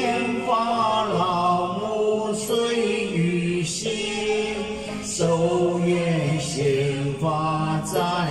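A man chanting a Buddhist sutra to a slow sung melody into a handheld microphone, holding long drawn-out notes in phrases that break every second or so.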